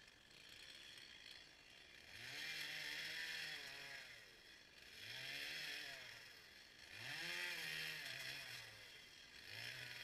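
Stihl chainsaw revving up and dropping back four times as it cuts into a fallen tree, faint and some way off.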